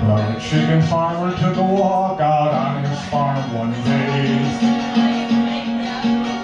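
A man singing solo to his own strummed acoustic guitar.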